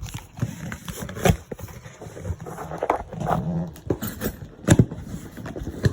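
Irregular knocks, clicks and rustling from a handheld camera stabilizer and its packaging being handled, with the loudest a quick pair of knocks about three-quarters of the way through.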